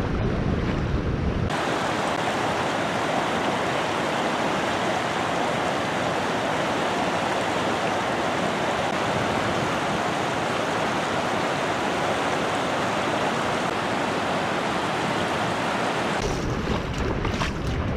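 Steady rush of fast-flowing river water. Wind buffets the microphone for the first second or so and again near the end.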